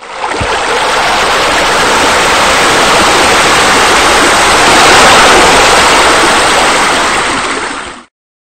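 Steady rush of falling, splashing water from a pool water feature. It cuts in suddenly and stops abruptly near the end.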